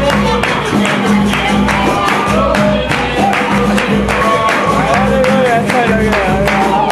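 Capoeira roda music: a group singing a call-and-response song over steady rhythmic handclapping and percussion.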